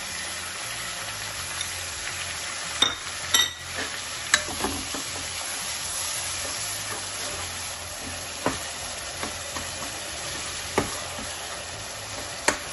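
Chopped onions sizzling in hot oil in an aluminium kadhai, stirred with a steel ladle that knocks sharply against the pan about six times. The onions are frying in a tadka of ginger, garlic and cumin.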